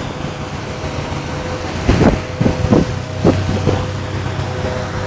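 Wind buffeting the microphone over a steady low hum, with a few short bumps about two to three and a half seconds in.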